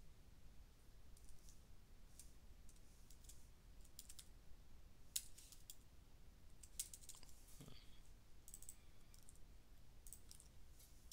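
Faint, irregular clicks of typing on a computer keyboard, a few keystrokes at a time with pauses between them.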